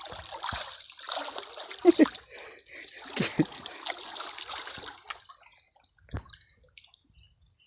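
Water splashing and trickling for about five seconds, with a couple of louder splashes around two and three seconds in, then fading to a few scattered drips.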